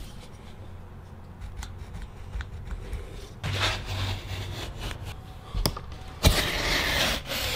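Utility knife scoring a sheet of drywall: a short scraping stroke about three and a half seconds in, then a longer, louder scraping stroke starting just after six seconds.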